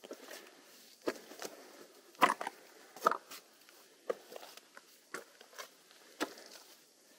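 A hiker's footsteps, uneven steps roughly every half second, the loudest about two to three seconds in.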